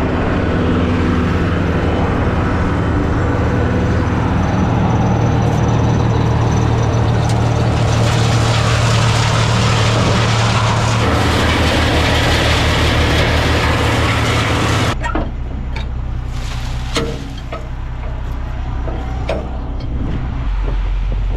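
Heavy work machinery engine running steadily with a strong low hum and a hissing wash above it; about 15 s in the hiss drops off suddenly, leaving a quieter engine note with a few knocks.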